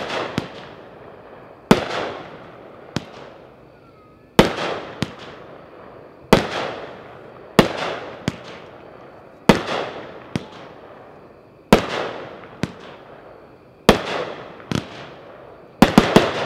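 Epic 'Light Show' 11-shot fireworks cake firing one shot about every two seconds, each a sharp bang with a rumbling echo, often followed by a smaller pop. Near the end comes a quick run of several bangs.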